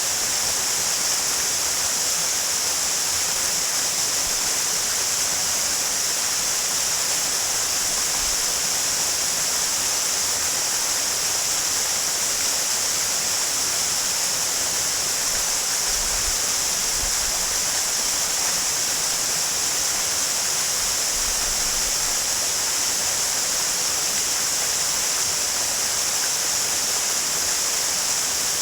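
Waterfall pouring steadily, an even, unbroken rush of falling water with a strong hiss in the upper range.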